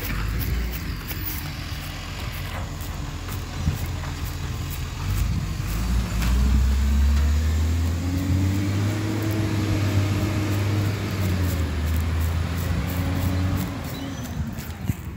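Garbage truck engine driving along the street, rising in pitch as it speeds up about six seconds in, holding steady, then easing off and fading near the end.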